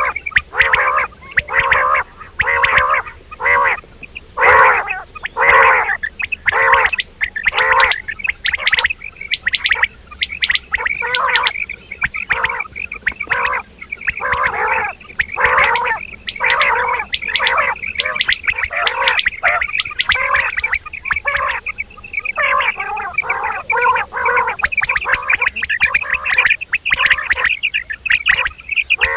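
Quail calling over and over: short, rattling calls repeated about once or twice a second, with little pause between them.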